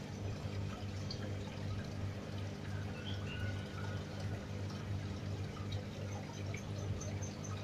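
Aquarium water bubbling and dripping from a rising air-stone bubble stream, over a steady low hum.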